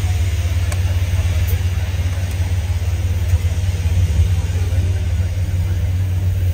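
A steady low rumble with faint voices in the background.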